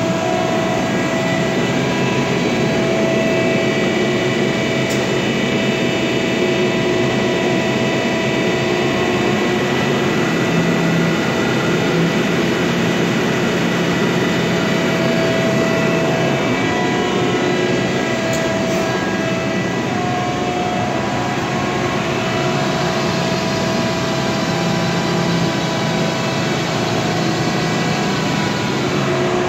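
Heavy industrial machine running steadily, most likely the Giddings & Lewis G50-T CNC horizontal boring mill under power: a continuous dense hum carrying several steady tones that shift slightly now and then.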